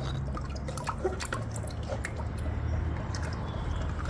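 Old engine oil dripping and trickling out of a Suzuki V-Strom 650 XT's engine into a drain pan, left to drain after the oil filter has come off, over a steady low hum.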